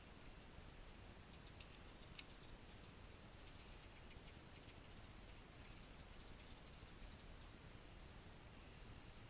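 Near silence in an open field, with a run of faint, quick, high chirps from small wildlife starting about a second in and stopping about seven seconds in. No shot is heard.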